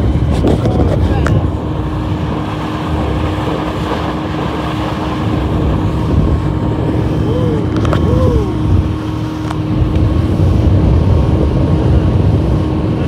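Small motorboat under way at speed: a steady engine hum under the rush of water along the hull.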